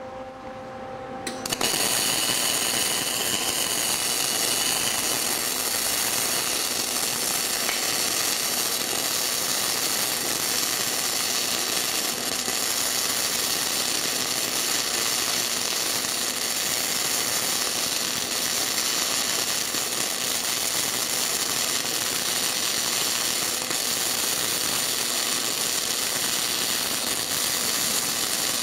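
Gasless flux-cored wire-feed welding arc from a 110-volt welder on DC electrode-negative: the arc strikes about a second and a half in and then runs steadily, throwing spatter as the bead is laid.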